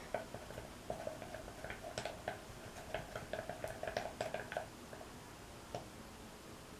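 A utensil stirring saline solution, glitter and purple paint in a mixing bowl, making quick light clicks and taps against the bowl. The clicking is steady for about four and a half seconds, then thins to an occasional tap.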